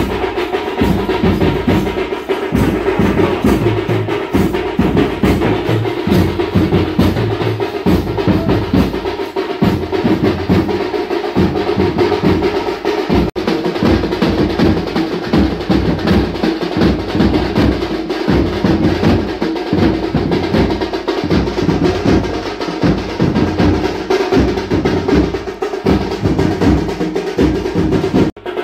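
Drums played in a fast, continuous rhythm of heavy low strokes, with a momentary break about 13 seconds in.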